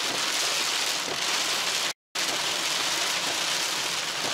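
Heavy rain pouring on a car's roof and windshield, heard from inside the cabin as a steady hiss. The sound cuts out for a moment about two seconds in.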